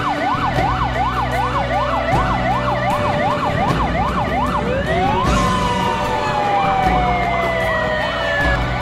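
Ambulance siren in fast yelp mode, its pitch rising and falling about two and a half times a second; about halfway through it switches to one quick rise and then a long, slow falling wail.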